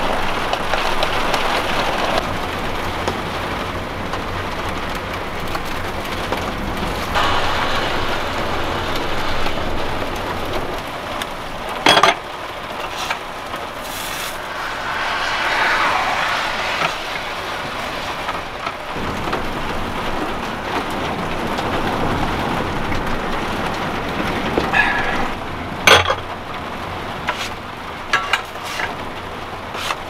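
Heavy storm rain on a camper van, heard from inside as a steady rushing noise, broken by a few sharp knocks about twelve seconds in and again near the end.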